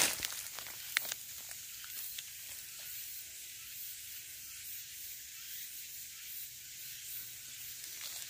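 Steady high hiss of outdoor ambience in a mountain thicket, with a few short rustles or clicks in the first second or so.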